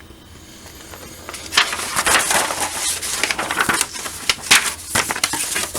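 Paper crinkling and rustling, starting about a second and a half in, as the plastic model kit's instruction booklet and papers are handled.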